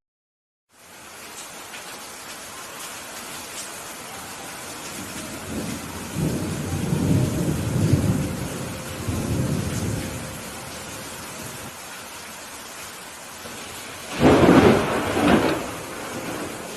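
Steady rain hiss with thunder: a low rolling rumble starts about six seconds in and lasts several seconds, then a louder, sharper thunderclap rolls off near the end. It begins with a brief cut to silence.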